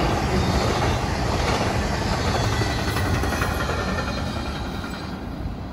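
Double-stack intermodal freight cars rolling past on steel wheels over the rails, a steady rail noise that fades near the end as the last cars go by and move away.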